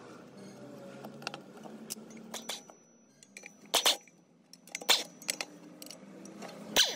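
Metal clinks and knocks of tools and cast-iron drill press parts being handled, with short, louder bursts of noise about four and five seconds in and again near the end as a tool works on the bolts at the column base.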